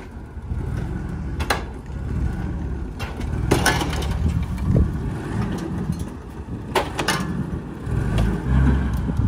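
A machine's engine running steadily as it strains to lift a truck cab that is still held to the chassis by unhooked lines. A few sharp knocks sound over it, about one and a half, three and a half and seven seconds in.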